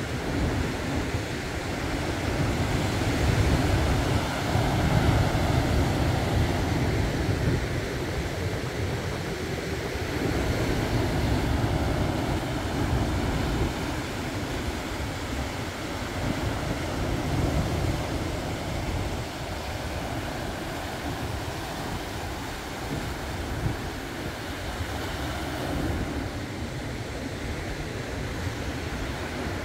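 Wind rumbling on the microphone over the rush of sea surf, swelling and easing every several seconds.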